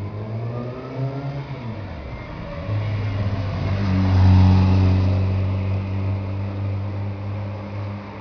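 Motor vehicle engines passing at low speed: a pitched engine note falls away in the first two seconds, then a steady low engine drone swells, loudest about four seconds in, and holds.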